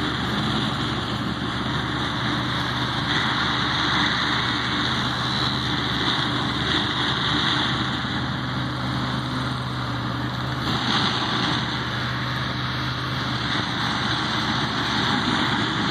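A vehicle engine running steadily as a low hum, with an even hiss over it.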